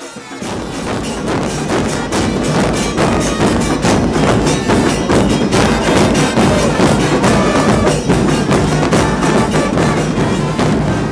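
Football supporters' murga band playing drums and percussion in a fast, driving rhythm, building up over the first second or two.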